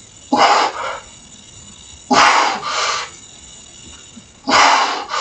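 A man's forceful, grunting breaths out, one with each rep of a weighted dip: three loud bursts about two seconds apart, each a strong puff followed by a weaker one. These are the straining breaths of the last reps of a hard set.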